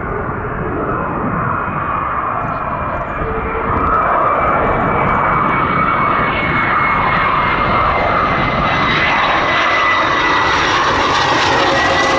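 F-22 Raptor's twin Pratt & Whitney F119 turbofans on landing approach: a loud jet roar carrying a howl, a high whistling tone that slowly falls in pitch, with a lower tone coming and going. It gets louder about four seconds in as the jet comes closer.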